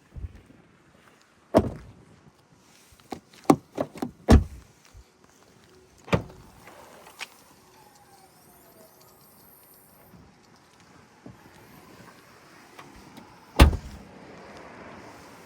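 Car doors and fittings being opened and shut: a string of sharp clicks and knocks, several close together about three to four seconds in, and one loud thump near the end.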